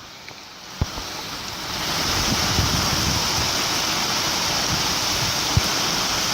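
Rushing storm noise of wind and rain, swelling about a second and a half in and then holding steady, with a few short knocks.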